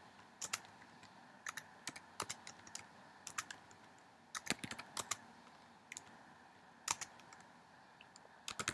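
Typing on a computer keyboard: irregular clusters of key clicks separated by short pauses, with a busy flurry near the end.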